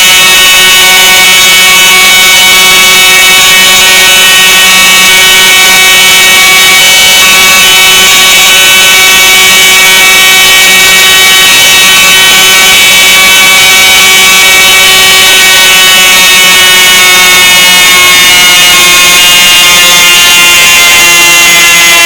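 Very loud, harsh electronic emergency-alert alarm tone, many steady pitches sounding together like a blaring horn or buzzer. Late on, the pitches start to slide downward.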